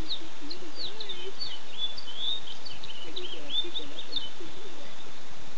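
Ducklings peeping from under their brooding mother: a rapid, overlapping run of short, high chirps.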